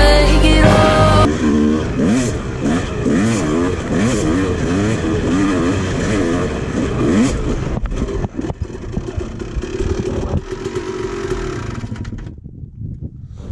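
Background music cuts off about a second in. Then a Honda CR two-stroke dirt bike engine revs up and down again and again while it is ridden on a sandy trail. It runs steadier in the second half and drops away shortly before the end.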